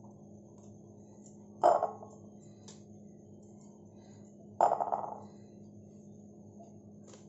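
Two pieces of dough dropped one after another into a glass bowl: two soft thuds against the glass, about three seconds apart, over a faint steady hum.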